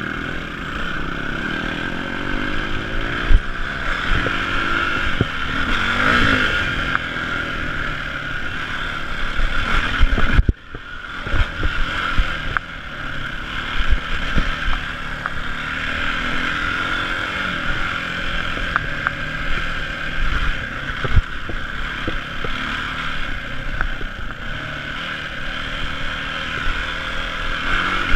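Yamaha dirt bike's engine running and revving as it is ridden over a rocky trail, with scattered knocks from the bike and rocks. There is a brief sudden lull about ten seconds in.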